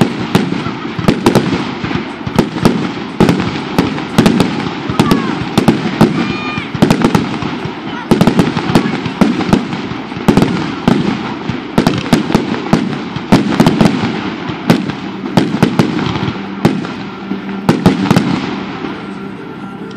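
Fireworks display in a rapid barrage: aerial shells bursting with sharp bangs several times a second, easing off slightly near the end.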